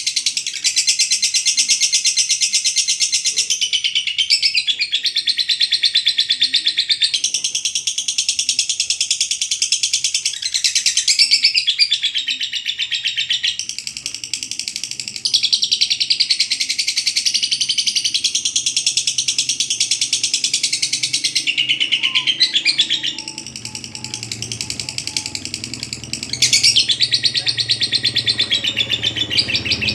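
Lovebird ngekek: long runs of rapid, high-pitched chattering trills, each lasting several seconds, with short breaks between them.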